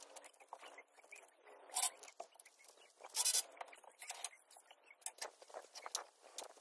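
Faint scattered knocks and scuffs of a worker climbing a scaffold ladder and moving onto a tiled porch roof, with two louder scrapes about two and three seconds in.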